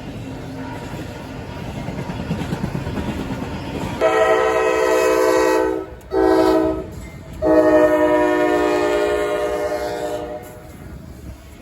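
Freight train rumbling on the rails, then a locomotive air horn sounding a chord in a long, short, long pattern before the rumble fades.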